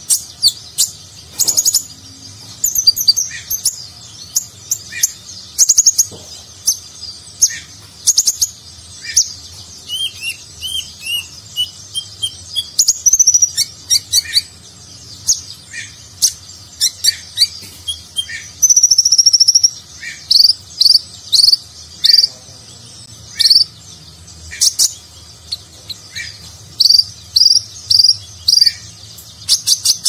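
Male purple-throated sunbird (konin) singing a full, varied song: sharp high notes and rapid trills, a wavering lower whistle about ten seconds in, and a long held high note near the twenty-second mark.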